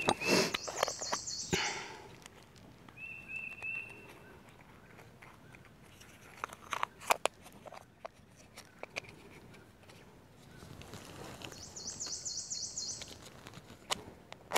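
Woodland ambience: a bird calls in short runs of clear chirps, and a buzzy pulsing trill sounds twice, about a second in and near the end. Scattered clicks and crunches from dry leaf litter and small handling noises.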